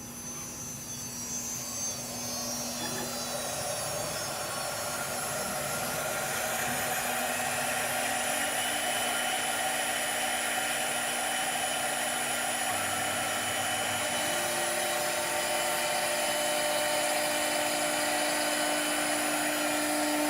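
Automatic CNC wood-turning lathe running: a steady motor whine with several tones over a continuous hiss. In the first few seconds the pitch glides, as if coming up to speed, and it then holds steady.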